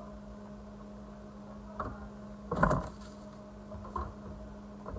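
A few soft knocks and clunks from things being handled in an open refrigerator, the loudest about two and a half seconds in, over a steady low hum.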